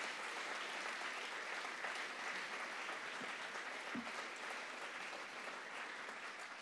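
Audience applauding steadily, the clapping slowly thinning out toward the end.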